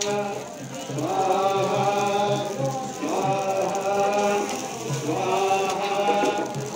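Hindu devotional chanting of mantras: a voice holding long, level phrases of about two seconds each, three in a row with short breaks between.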